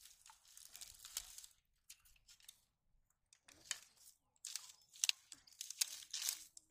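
Dry straw and reeds crackling and rustling as they are stepped and shifted on, in irregular bursts: a cluster in the first second and a half, then a denser run from about three and a half seconds in.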